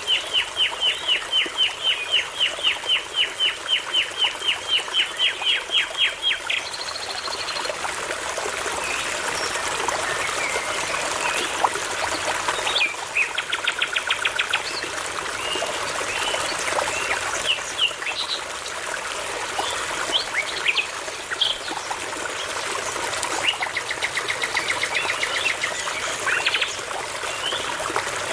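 Songbirds singing over a steady babbling brook. A fast run of repeated whistled notes, about five a second, lasts the first six seconds or so; then come scattered varied calls and a short trill, and another run of repeated notes near the end.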